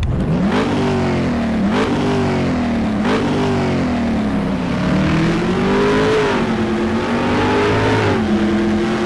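Car engine accelerating hard. Its pitch climbs and drops back sharply three times in the first three seconds, as with quick gear changes, then rises more gently and holds fairly steady.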